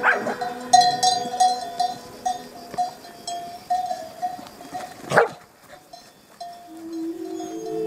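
Sheepdogs barking: one sharp bark at the start and another about five seconds in, with small bells clinking in the flock.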